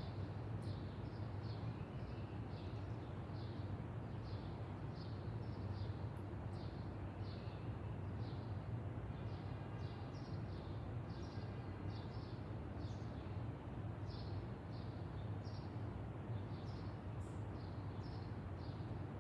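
A bird calling a long, even series of short, high chirps, about one or two a second, over a steady low hum.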